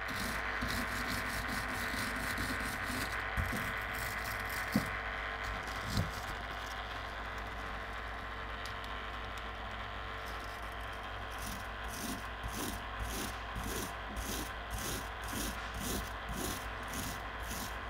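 Hand-held steel wire brush scrubbed back and forth over a small metal lathe part, scratching off paint that a stripper bath has softened. In the second half the strokes come steadily, about two a second, and there are two short knocks in the first third.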